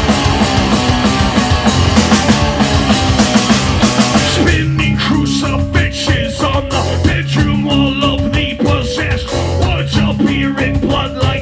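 Live rock band playing loud: bass, electric guitar and drums. About four and a half seconds in the dense full-band wall of sound drops to a sparser section of held bass notes with a singer shouting into the mic.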